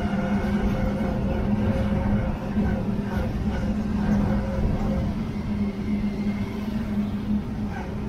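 A vehicle driving at a steady speed: an engine holding one constant low hum over road noise.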